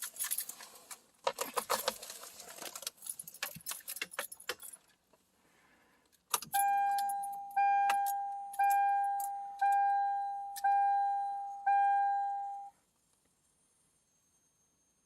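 Car keys jangling and clinking for several seconds. Then a car's electronic warning chime dings six times, about once a second, each ding fading out before the next, and stops.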